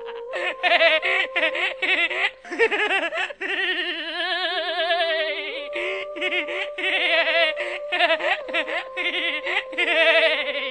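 Laugh track: several people laughing and giggling in continuous waves, laid over the picture.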